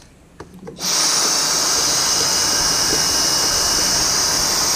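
Dyson cordless stick vacuum switched on about a second in and running steadily with a high-pitched whine and rush of air, sucking leftover coffee grounds and oily residue out of a coffee grinder's burr chamber.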